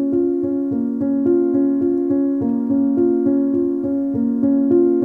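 Background music: a keyboard melody of evenly spaced notes, about three to four a second.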